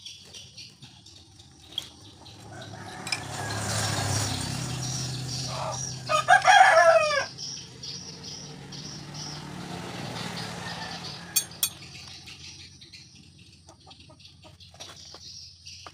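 A rooster crowing once, about six seconds in, the loudest sound. Around it a low hum swells and fades, and two sharp clicks come a few seconds later.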